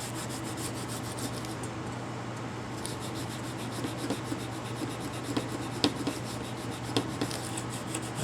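An old piece of toy-train track being scrubbed clean with an abrasive cleaner: a steady run of quick, scratchy rubbing strokes along the rails, with a few sharper clicks in the second half.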